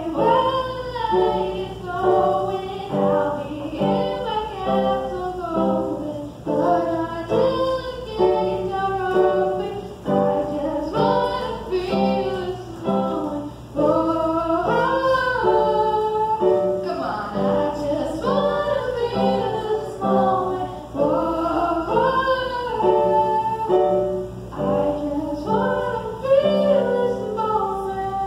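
A young girl singing a song into a microphone while accompanying herself on an electronic keyboard.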